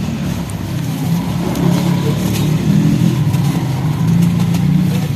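Dry, crumbly material being crushed and crumbled close to the microphone, with scattered crackles over a loud, steady low rumble.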